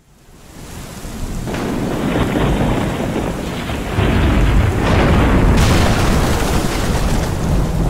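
Cinematic logo-sting sound effects: a thunder-like rumble that swells up from silence over the first two seconds, steps up louder about four seconds in, and gains a bright hissing blast near six seconds.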